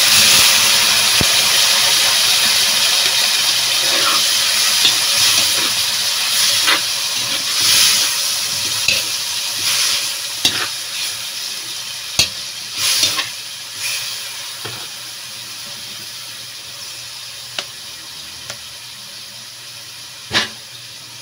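Pork pieces hitting hot oil in a wok with a sudden loud sizzle that slowly dies down as they are stirred, with a dozen or so scrapes and knocks of the spatula against the wok.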